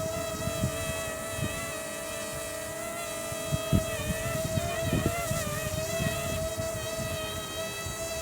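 Ryze Tello mini quadcopter's motors and propellers whining steadily, the pitch wavering briefly midway as the motors adjust. Gusts of wind rumble on the microphone underneath.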